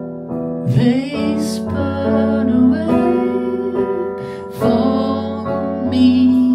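A man singing over sustained chords played on an electric keyboard, his voice coming in about a second in and again near the end.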